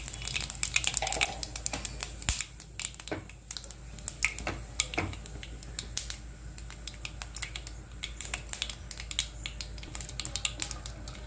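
Mustard seeds spluttering in hot sesame oil in a kadai with urad dal and fennel seeds: irregular sharp pops and crackles, scattered unevenly, over a faint frying hiss.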